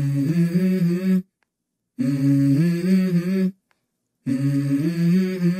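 Music: a hummed vocal melody in three short phrases of held, stepping notes, each cut off abruptly with a brief silence between them.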